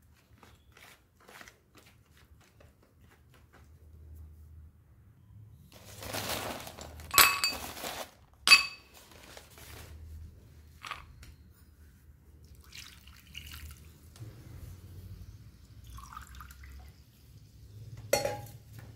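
A metal spoon stirring and scooping a thick wet paste, with soft squelching, and the spoon clinking sharply against a glass bowl twice around the middle and once more near the end.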